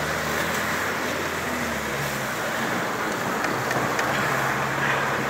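Car engine and road noise heard from inside the cabin while driving slowly: a steady low engine hum over tyre and wind noise, the engine note shifting about two seconds in.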